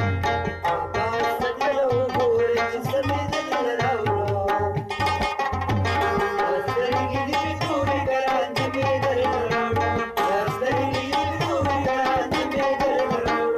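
Pashto folk music on a rabab: the strings are plucked in a busy melody with ringing sympathetic strings, over a hand drum beating a steady low rhythm.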